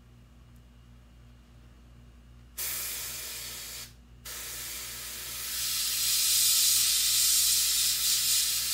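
Airbrush spraying paint through a stencil: a hiss that starts about two and a half seconds in, breaks off briefly after a second, then resumes as a longer spray that grows louder.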